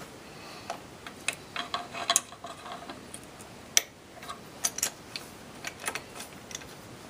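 Light, irregular metal clicks and clinks of a steel muzzle brake being hand-threaded onto an AR-15 pistol barrel, with an adjustable wrench held in the same hand. The sharpest click comes about halfway through, followed by a few small clusters of clicks.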